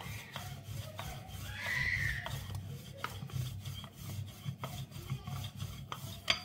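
Wooden rolling pin rolling back and forth over layered paratha dough on a countertop: a soft rubbing with faint clicks every half second or so, over a steady low hum.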